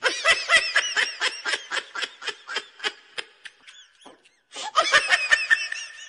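High-pitched giggling laughter in a quick run of short laughs, about five a second, dying away over the first few seconds, then a second loud burst of giggling just over four and a half seconds in.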